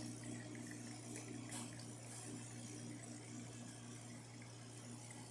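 Espresso machine's pump humming steadily while an espresso shot is being pulled.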